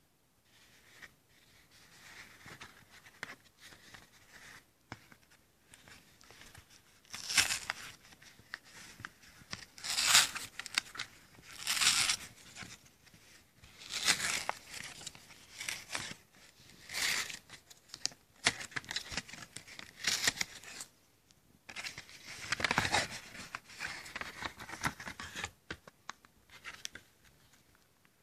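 Cardboard mailer being torn open along its tear strip: a series of sharp ripping pulls, each under a second, with paper crinkling and handling noise in between.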